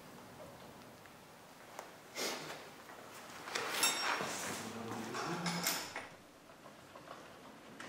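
Scrapes and knocks from handling a stiff black cover on the front of a radial engine. There is a short scrape about two seconds in and a louder stretch of scraping and clunking from about three and a half to six seconds in.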